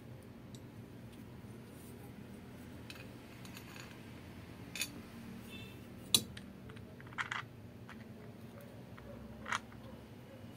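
Small metal parts and tools being handled and set down on a workbench: scattered light clicks and clinks, about four sharper ones spread a second or two apart.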